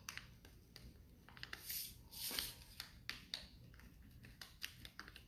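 Faint scratching of a wax crayon drawing zigzag lines on paper over a hard countertop, in short strokes with small taps, a little louder about two seconds in.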